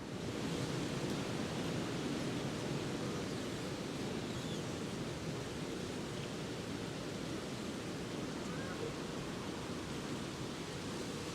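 Winter wind blowing through bare, leafless park trees: a steady rushing noise that swells at the start and holds. A few faint short squeaks come through it.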